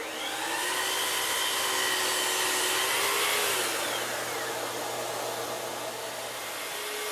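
Festool Kapex miter saw running and cutting crown molding, with a dust-extraction vacuum running alongside. The saw's whine slides down about three and a half seconds in as the blade winds down, while the vacuum's steady rush carries on.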